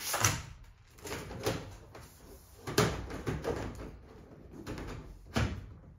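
Plastic cover of an 8-foot LED shop light being handled and pushed into place on the fixture: several sharp knocks and clicks with sliding rubs in between.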